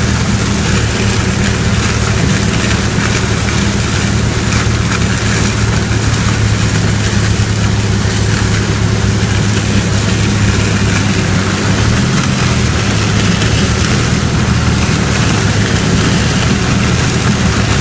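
A combine harvester running steadily while harvesting down corn with a Capello corn header, heard from inside the cab. It makes a loud, even machine drone: a low hum over a wide rushing noise, and the hum dips briefly about twelve seconds in.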